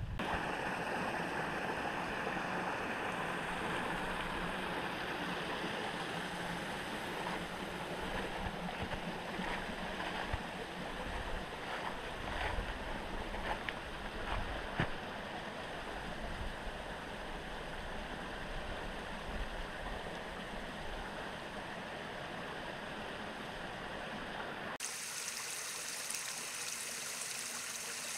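Small woodland creek running and trickling over rocks, a steady rushing noise with a few light clicks in the middle. Near the end the sound abruptly switches to a brighter, hissier trickle.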